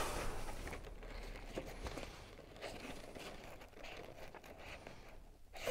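Faint rustling and crinkling of kayak-skin fabric and thread being handled while stitching the cover onto the frame, with a few light ticks.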